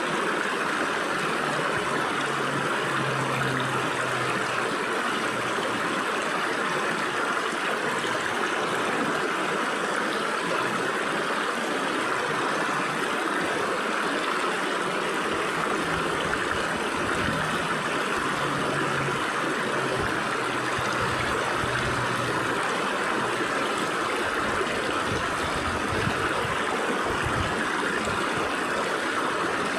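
Stream water flowing and splashing through the gaps between rocks, a steady rushing babble.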